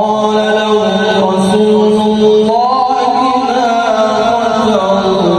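Male qari's voice in melodic Quran recitation (tilawah), amplified through a microphone. He holds one long ornamented phrase that rises in pitch about two and a half seconds in and drops back near the end.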